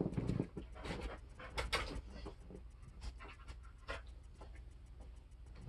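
Dog panting softly, with a few short scratchy rustles.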